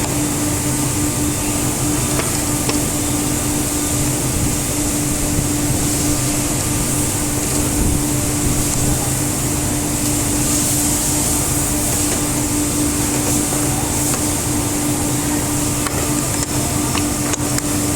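Woodworking CNC router running steadily: a constant machine hum with a high whine and hiss, and a few sharp ticks near the end.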